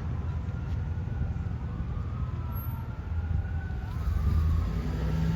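Fire engine siren wailing, its pitch gliding up and down, over a steady low rumble; it grows louder about four seconds in as the engine approaches.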